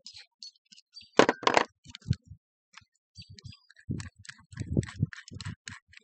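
Cordless drill and small parts being handled: a string of small clicks and knocks, with two loud sharp knocks a little over a second in, then dull thumps and rattles.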